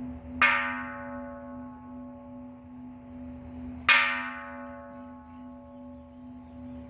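Hanging bronze temple bell struck twice with a mallet, about three and a half seconds apart. Each strike rings out and slowly fades, over the low hum left by the earlier strikes.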